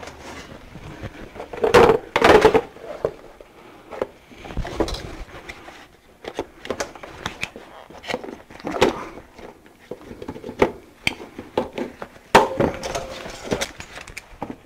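Workshop handling noises as a hot Lexan sheet is taken from an oven and clamped into a wooden vacuum-forming frame with locking pliers. Scattered clicks, knocks and scrapes of metal and wood, loudest about two seconds in and again about twelve seconds in.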